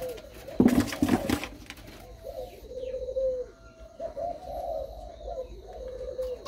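Spotted doves cooing repeatedly, the low coo phrases overlapping from more than one bird. A brief loud clatter about a second in.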